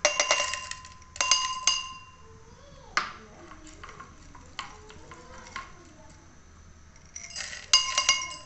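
Beeswax pellets poured into a glass beaker, clinking and rattling against the glass so that the beaker rings. There are two short pours near the start, a few single clinks in the middle, and another pour near the end.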